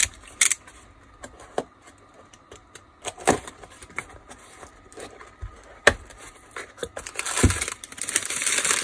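A small cardboard box being handled and opened, with scattered taps and clicks of cardboard and a utility knife, one sharp click about six seconds in. From about seven seconds in, wrapping paper crinkles continuously as the part inside is unwrapped.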